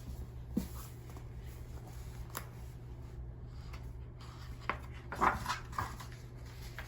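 Quiet small-room tone with a steady low hum, broken by a few faint clicks and soft rustles, a small cluster of them about five seconds in.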